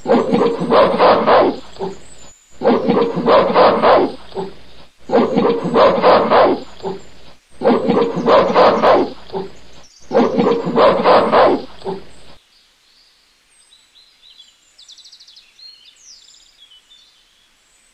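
A recorded animal call played as a sound effect: the same clip of about two and a half seconds repeats five times back to back, then stops about twelve seconds in, leaving only faint low-level sound.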